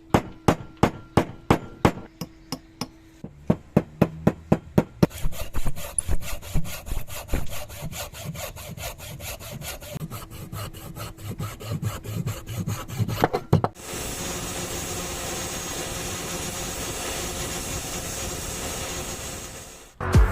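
Hand-tool work on wood: a run of sharp, evenly spaced strikes about three a second, then fast back-and-forth scraping strokes, giving way about fourteen seconds in to a steady hiss.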